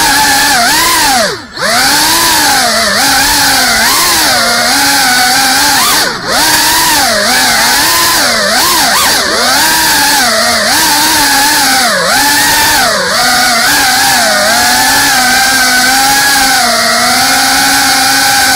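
GEPRC Cinelog 35 ducted cinewhoop FPV drone flying, its motors and propellers whining in pitch that swoops up and down constantly with the throttle. The whine falls away sharply twice, about a second and a half in and again around six seconds, then holds steadier near the end.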